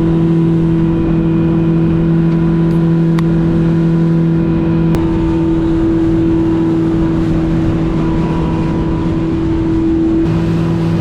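An engine running steadily under way, with a constant two-note drone over a rushing rumble. The lower note fades out about halfway through and comes back near the end.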